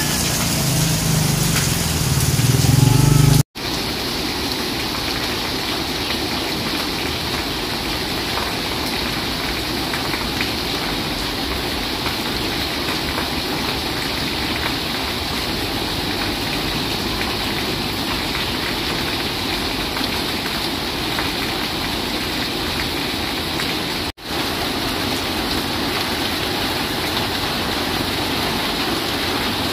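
A motorcycle engine approaches through heavy rain, getting louder for about three and a half seconds until the sound cuts off abruptly. After that there is steady, even heavy rain, which drops out once briefly later on.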